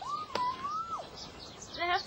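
A single whistled note about a second long, rising at the start, holding steady, then dropping away, with a short click about a third of a second in. A voice starts just before the end.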